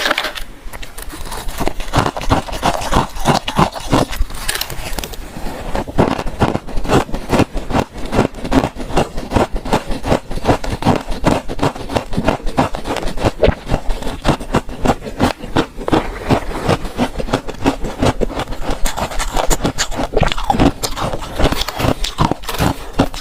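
Freezer frost being chewed and crunched close to the microphone: a rapid, unbroken run of crisp crunches.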